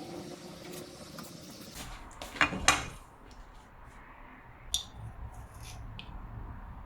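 Kitchen utensils and dishes knocking and clinking: a cluster of loud sharp knocks about two and a half seconds in, then a few lighter clicks.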